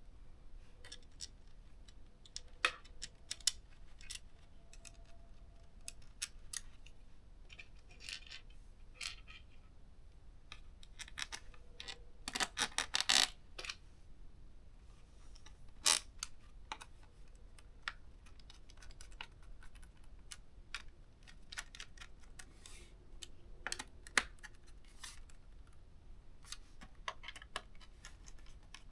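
Scattered small clicks and taps of a screwdriver and hands working on a ThinkPad T430 laptop's plastic case as its screws are put back in, with a quick run of clicks about twelve seconds in.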